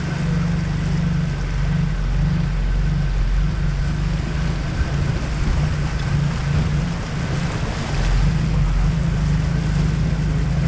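Vehicle driving on a rough trail: a steady low engine drone with wind buffeting the microphone.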